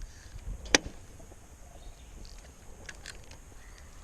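A single sharp click about a second in, then a couple of fainter ticks near the end, over quiet outdoor ambience with a light low rumble of wind.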